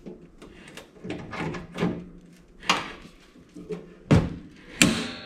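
Knocks and clanks as a toaster oven's sheet-steel housing is handled and pried apart. A sharp strike near the end rings on.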